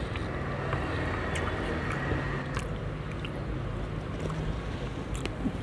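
Eating by hand: fingers mixing rice and chicken curry on a steel plate and scooping from a steel bowl, with soft chewing and a few light clicks. A steady low hum runs underneath.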